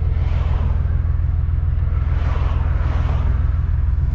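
Infiniti Q50's 3.7-litre V6 with long tube headers and an open 3-inch exhaust, cruising at a steady, deep rumble, heard from inside the cabin.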